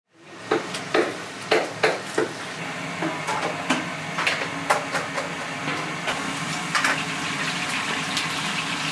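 Kitchen work sounds: a steady hiss, with irregular sharp knocks and clatters, the densest in the first couple of seconds.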